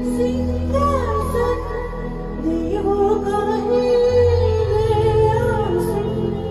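A song with a woman's singing voice over instrumental backing with steady low bass notes.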